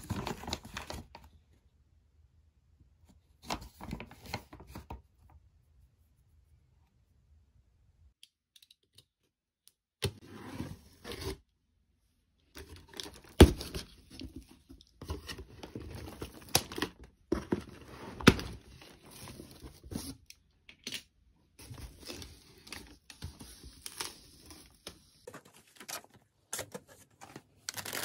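A foil snack bag rustles briefly twice in the first few seconds. After a quiet stretch, a cardboard box is opened: packing tape tears off and the cardboard flaps and packed contents rustle and knock, with a few sharp snaps among them.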